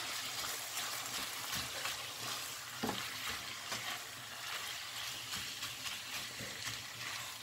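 Ground beef picadillo in tomato sauce sizzling gently in a nonstick frying pan while it is stirred with a silicone spatula, with a couple of soft knocks of the spatula against the pan.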